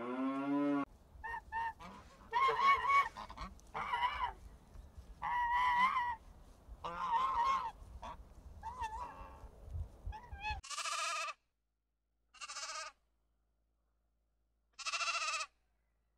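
The tail of a cow's moo, followed by Canada geese honking repeatedly for about ten seconds. Then a sheep bleats three times with pauses between.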